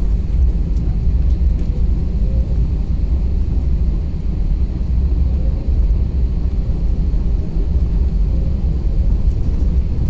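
Jet airliner's turbofan engines running at taxi power, heard from inside the cabin as a steady low rumble while the plane taxis.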